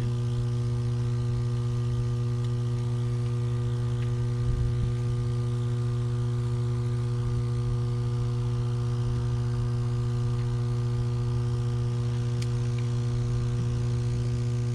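Steady electrical hum of substation equipment: a strong low tone with evenly spaced overtones above it, typical of a power transformer energised on the grid.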